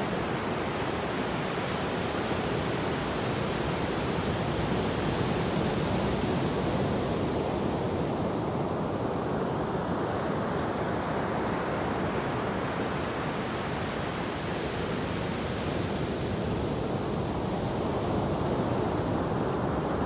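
Ocean surf breaking on a sandy beach and foam washing up the shore: a steady rushing wash that eases slightly in the middle and builds again near the end as the next wave comes in.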